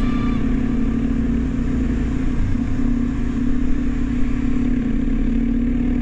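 Dirt bike engine running at a steady, even pace while the bike is ridden over beach sand, heard close from the moving bike.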